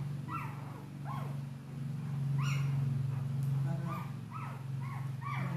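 A dog whining in a string of short, falling, high-pitched cries, about nine of them, over a steady low hum.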